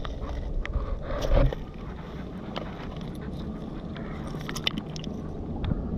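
Scattered clicks and clinks of pebbles and shingle being moved about, with a heavier thump about a second in, over a low steady rumble.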